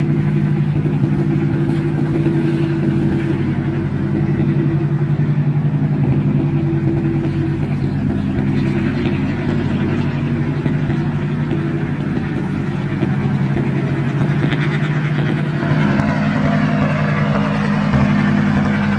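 Diesel engines of small wooden towing boats running steadily under load as they tow a large fishing vessel out to sea. The engine tone shifts about three-quarters of the way through.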